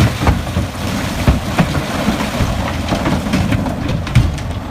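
Toy bulldozer clattering, with many irregular knocks over a steady low rumble.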